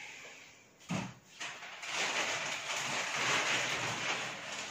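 A couple of short knocks about a second in, then a thin plastic TV cover rustling and crinkling steadily as it is lifted off the screen.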